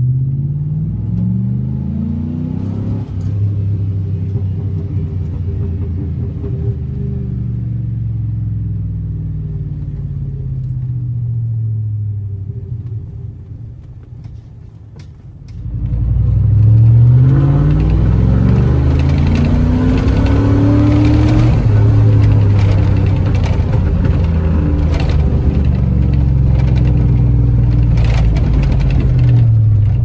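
Pickup truck V8 exhaust through a Flowmaster Super 10 chambered muffler, heard from inside the cab: the engine accelerates with a rising note, then eases off and falls away. Just before halfway a louder pass without catalytic converters begins: a hard acceleration rising in pitch, a steady drone at speed, and a falling note near the end as it lets off.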